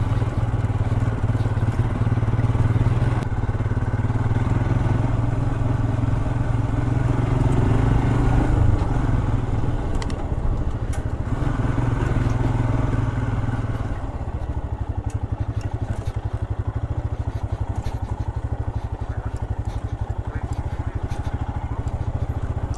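Royal Enfield Himalayan's single-cylinder engine running under way on a rough trail. About two-thirds in it eases off and settles into a slower, even beat at low revs.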